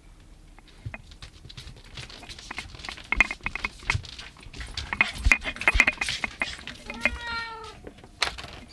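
A domestic cat meowing once, about seven seconds in, after several seconds of scattered tapping, clicking and rustling with short high ringing notes.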